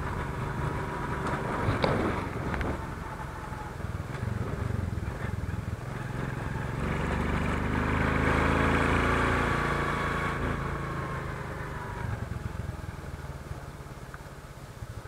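Motorcycle engine running under way with rushing wind noise, heard from the rider's position; the engine gets louder about halfway through, then eases off. A brief knock about two seconds in.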